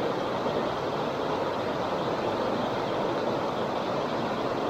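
Steady rushing of a river's flowing current, an even watery hiss with no breaks.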